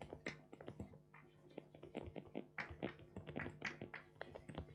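Chalk writing on a blackboard: a quick, irregular run of light taps and short scrapes as letters are written, over a faint steady room hum.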